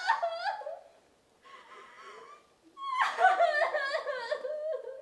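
A woman sobbing and wailing in a high, wavering voice: a short sob, a faint whimpering stretch, then a longer loud wail from about three seconds in.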